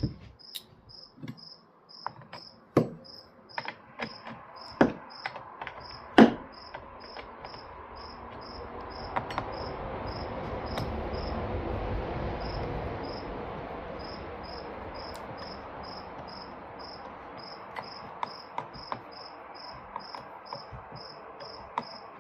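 Crickets chirping steadily, about three chirps a second, under sharp clicks and knocks of metal parts and tools as a chainsaw bar nut and tensioner are worked on, the loudest knock about six seconds in. A broad rushing sound swells and fades in the middle.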